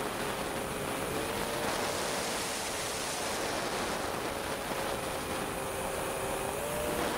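Wind rushing over a flying quadcopter's onboard camera, with the faint whine of its motors and propellers underneath. The whine wavers slightly and rises in pitch near the end.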